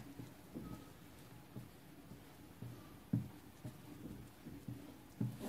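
Strawberry cake batter being stirred by hand in a bowl, the utensil scraping and knocking softly against the bowl roughly every half second, with two louder knocks about three seconds in and near the end, as the batter is worked free of lumps.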